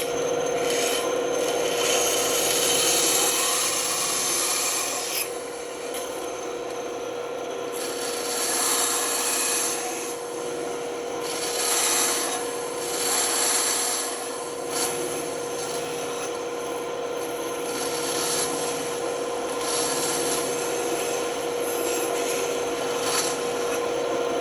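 Band saw running with a steady hum while its blade cuts wood. The cutting noise swells and fades every few seconds as the piece is fed through.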